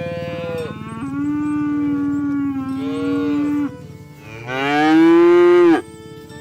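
Several cows mooing in turn: a short call, then a long low moo with a higher one overlapping it, then a louder final moo that rises in pitch and breaks off sharply about a second before the end.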